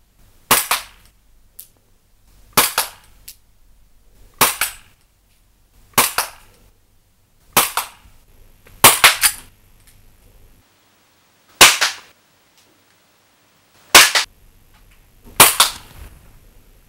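Umarex H&K VP9 gas blowback airsoft pistol firing nine single shots, each a sharp crack with the slide cycling, spaced one and a half to two and a half seconds apart.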